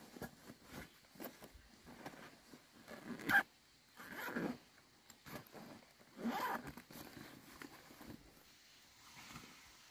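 Zippers on a fabric backpack being pulled, a few short rasping zips, among rustling as the bag is packed and handled.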